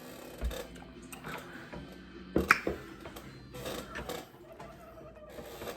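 Close-up eating sounds from a seafood boil: chewing and mouth smacking with a few sharp clicks, the loudest pair about two and a half seconds in, over faint background guitar music.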